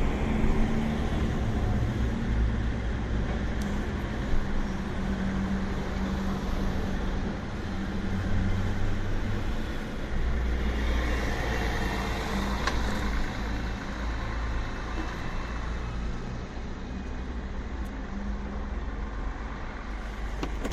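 Light traffic at a city intersection: engines idling and vehicles moving off and passing, with one vehicle passing more loudly a little past the middle.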